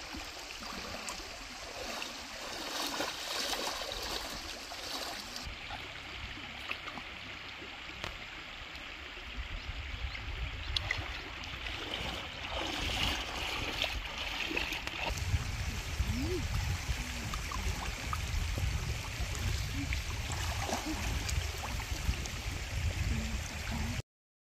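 A shallow stream running and trickling, with a few light knocks. A low rumble builds from about halfway through, and the sound cuts off abruptly just before the end.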